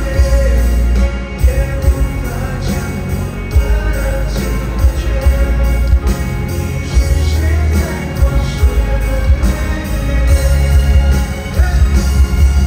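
Live pop concert music: a band playing with singing over a heavy, pulsing bass.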